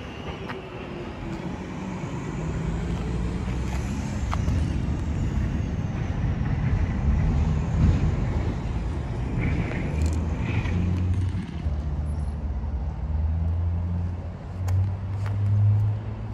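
A vehicle engine running steadily at idle, a low hum that grows louder over the first few seconds, with a few faint clicks.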